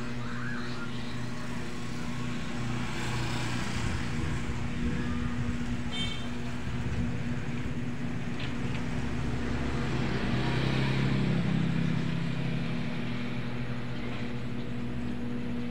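A motor vehicle's engine running with a steady hum, getting louder about two-thirds of the way through and then easing off.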